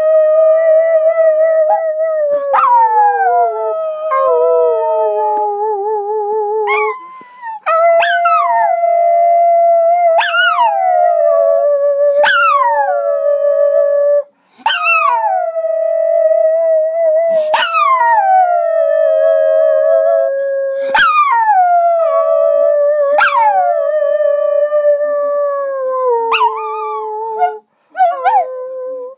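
Schnauzer howling in a long run of drawn-out howls, each starting with a sharp yip that slides down in pitch into a held, wavering tone, about one every two to three seconds.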